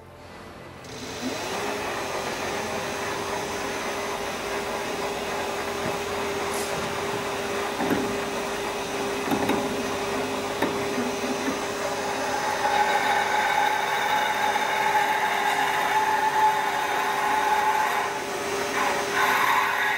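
WEISS WBL290F benchtop lathe running with a steady whine while a drill in the tailstock chuck is fed into the end of the turning workpiece. From about twelve seconds in, the drill cutting adds louder, higher-pitched whining tones.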